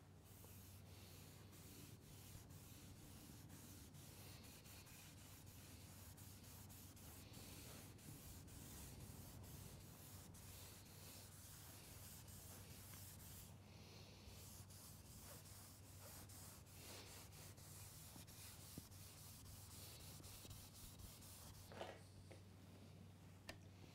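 Faint rubbing of a cloth rag wiping Danish oil into a sanded pallet-wood tabletop, stroke after stroke, over a low steady hum. A couple of small knocks come near the end.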